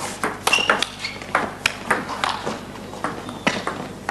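Table tennis rally: the celluloid ball clicking off rackets and table in an irregular run of sharp knocks.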